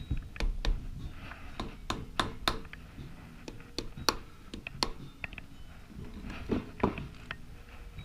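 Irregular sharp taps and clicks of a hand tool against the metal of a Yamaha XJ600 engine as a stuck cover is worked loose. The cover is held fast, doweled or glued on.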